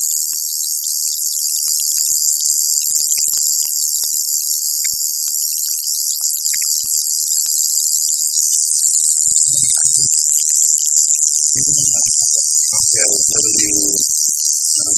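Coil tattoo machine buzzing steadily at a high pitch while the needle works the skin.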